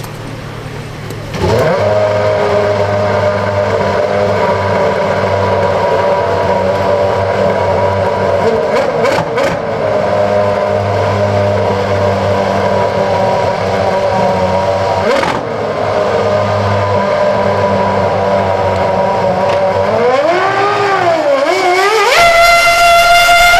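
The 2004 BAR Honda 006 Formula One car's 3.0-litre V10 fires up about a second and a half in and idles steadily. Near the end the revs rise and fall twice, then climb high and hold as the car launches with its rear tyres spinning.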